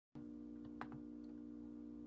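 A steady low hum of a few held tones, with two quick clicks a little under a second in and a faint tick just after.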